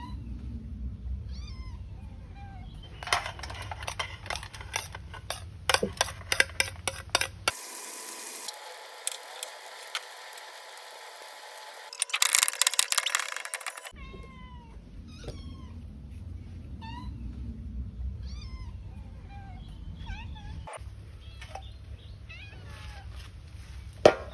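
Cat meowing over and over in short, high calls that rise and fall. Runs of sharp clicks come in twice, about three seconds in and again about twelve seconds in.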